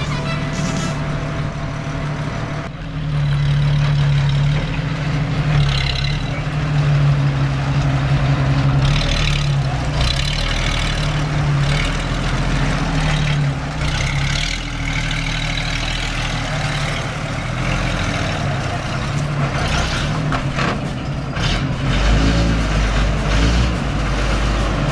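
M16 halftrack's engine running steadily while the vehicle is driven, its pitch stepping up and down a little.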